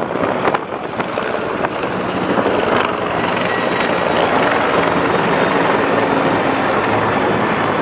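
RCAF Chinook tandem-rotor helicopter and two Griffon helicopters passing low overhead: a steady, loud drone of rotors and turbine engines that grows louder about three seconds in as they come over.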